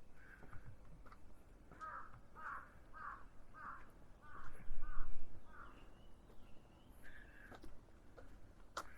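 A crow cawing, a run of about eight short caws at roughly two a second, with single caws before and after. A brief low rumble about halfway through is the loudest moment.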